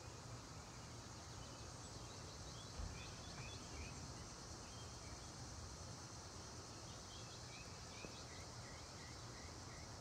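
Faint outdoor ambience: a steady, high insect drone with a small bird giving short runs of quick chirps, once about three seconds in and again from about seven seconds to near the end.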